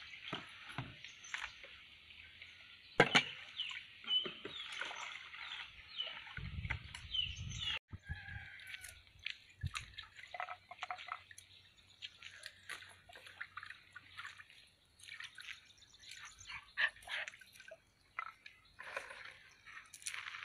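Water being ladled and vegetables rinsed by hand in a plastic basin of water: scattered splashes, drips and sloshing, with a sharp knock about three seconds in.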